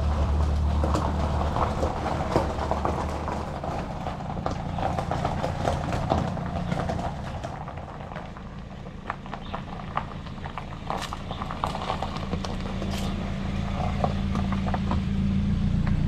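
Compact SUV driving slowly over gravel: a low engine hum with the crunch and crackle of tyres rolling on loose stones. The crunching thins out partway through, and the engine hum grows louder again near the end.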